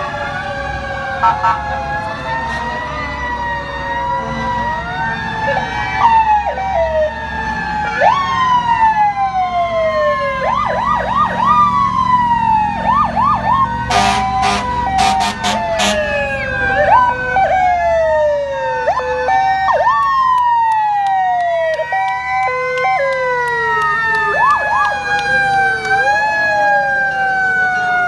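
Sirens of several passing fire trucks and emergency vehicles sounding at once: long slowly falling wails overlapped by quick rising-and-falling whoops, with a run of sharp short blasts around the middle, over the low rumble of the truck engines.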